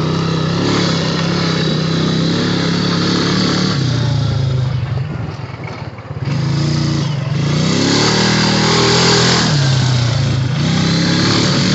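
Honda Rancher ATV's single-cylinder engine running under throttle. It eases off about five seconds in, then revs back up with a rising pitch and drops again near the end.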